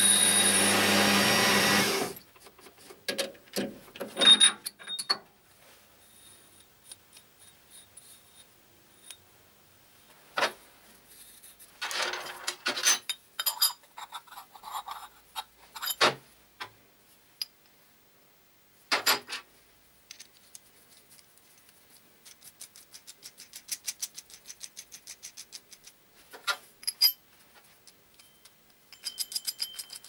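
A metal lathe running as it turns a steel pipe reducer adapter, cutting off abruptly about two seconds in. Then small steel parts (a washer, bolt, nuts and pipe fittings) clink, knock and ring as they are picked up and set down on a steel workbench, with a rapid run of light ticks a little past the middle.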